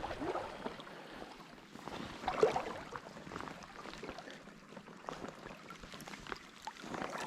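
Steady rush of a fast, deep trout stream, with scattered small clicks and one brief louder sound about two and a half seconds in.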